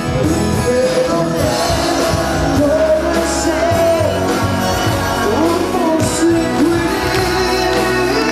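Live pop-rock band playing a song: drum kit, electric guitar and keyboard, with a singing voice carrying the melody.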